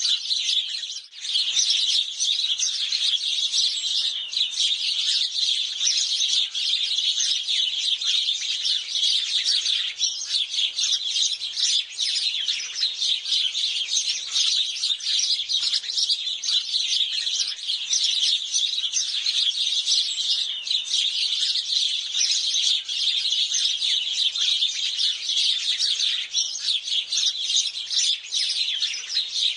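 A flock of house sparrows chirping continuously, many short chirps overlapping with no pause, with a brief lull about a second in.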